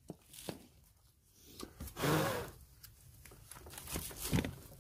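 Close handling noise: a jacket sleeve rustling and rubbing near the microphone, loudest in a short swell about two seconds in, with a few light clicks and knocks of the pit bike engine's cylinder being gripped and worked loose on its studs.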